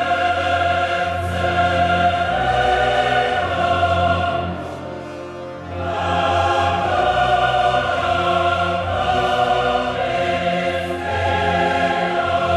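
Choir and orchestra in a modern choral-orchestral work: the choir holds dense, sustained chords over a steady low orchestral bass. The sound dips about five seconds in, then swells back up.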